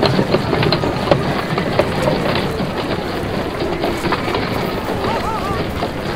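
Busy street sound effects: a steady rolling clatter of wheels on tram rails, with a short warbling tone about five seconds in.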